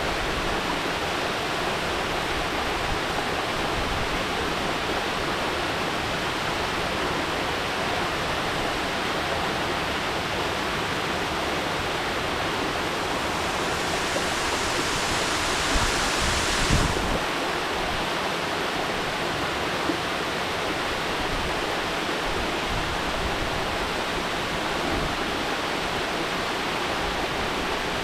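Mountain waterfall: a steady rush of falling water, with a brief louder, hissier swell a little past halfway.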